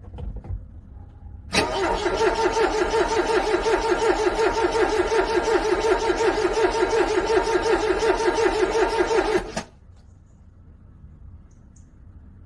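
Car starter cranking a cold engine for about eight seconds, a rhythmic pulsing whir that never catches, then cutting off abruptly. A couple of short knocks come just before the cranking begins.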